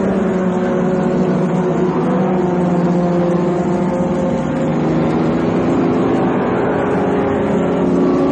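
Several 1950s racing car engines running hard together at speed, a continuous layered engine note with slight rises and falls in pitch.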